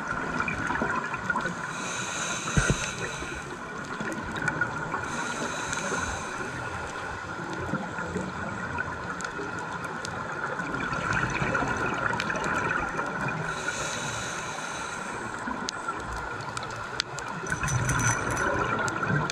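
Scuba diver breathing through a regulator underwater: a hiss on each inhalation, several times a few seconds apart, and bubbling exhalations, over a steady underwater hum.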